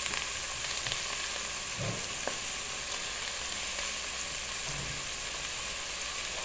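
Onion, bell pepper, tomato and potato chunks sizzling steadily in hot olive oil in an aluminium pot on a gas burner, frying down as the base of a stew.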